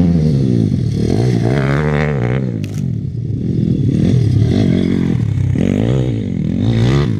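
Two MRF 170 pit bikes, single-cylinder four-stroke engines, revving hard, their pitch climbing and dropping again and again as the riders open and close the throttle.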